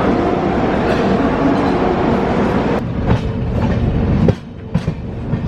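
Passenger train running on the rails, its wheels clacking over the rail joints. The level drops suddenly about four seconds in.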